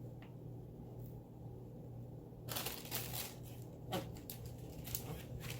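Rustling and a few light clicks of salad vegetables and kitchen items being handled, starting about halfway through, over a steady low hum.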